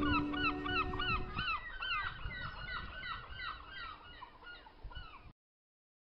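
A flock of birds calling: many short, arched calls repeating several times a second and overlapping, fading gradually and cutting off abruptly about five seconds in. A low sustained musical drone fades out in the first second and a half.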